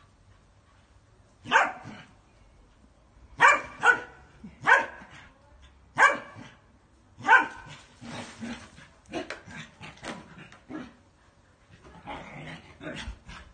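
Dogs at play barking: six loud, sharp barks in the first half, then softer, irregular play sounds.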